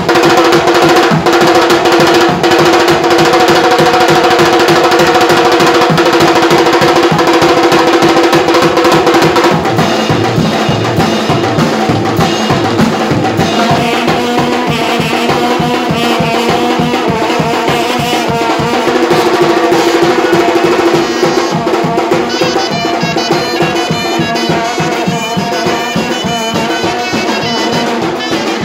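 Traditional wedding band music: a drum kit and metal-shelled drums beaten fast, with long brass karnay horns blowing sustained blasts and a surnay pipe playing. The held horn tone is strongest for the first ten seconds and returns briefly around twenty seconds in.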